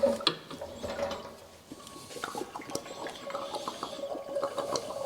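Oil trickling and dripping into a drain pan, in many small irregular drips, with a metal clank right at the start.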